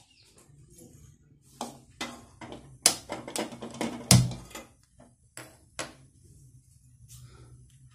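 A handful of sharp clicks and metallic knocks as a gas stove burner is lit with a hand-held spark lighter under an aluminium kadai. The loudest click, about four seconds in, has a low thud under it.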